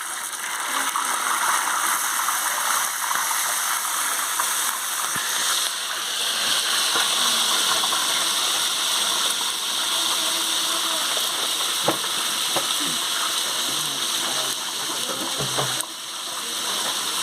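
Mojarra fish frying in hot oil: a steady sizzle with scattered crackling and a few sharp pops.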